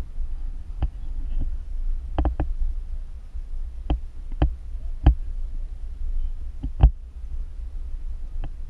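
Bicycle rolling over brick pavers, heard through a bike-mounted camera: a steady low rumble of wind and road, broken by about eleven sharp, irregular clicks and knocks, the loudest about five and seven seconds in.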